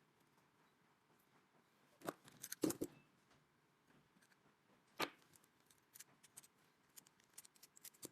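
Small hard objects being handled: a sharp click about two seconds in, a cluster of clicks and knocks just after, another sharp click about five seconds in, then a scatter of lighter ticks.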